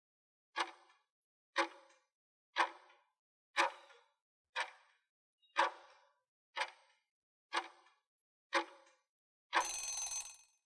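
Countdown timer sound effect ticking once a second, ten ticks, ending in a short one-second buzz as the count runs out.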